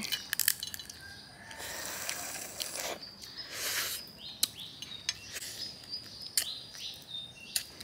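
Cooked crayfish being eaten by hand: shells crackling and clicking as they are peeled, with a couple of longer sucking, slurping sounds about two and four seconds in. Birds chirp in short falling calls in the second half.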